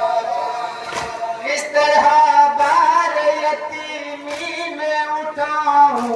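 Male voices singing a noha (Shia lament) through a loudspeaker in long held notes that step in pitch. Chest-beating (matam) gives dull thumps roughly once a second.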